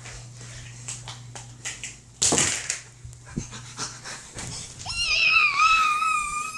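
Handling knocks and rubbing as a handheld camera is tumbled about, with a loud rush about two seconds in. From about five seconds in, a long, high-pitched wavering whine.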